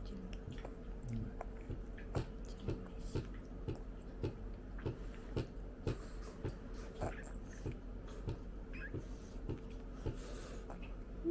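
A person chewing food, with short wet clicks of the mouth at a steady rhythm of about two chews a second.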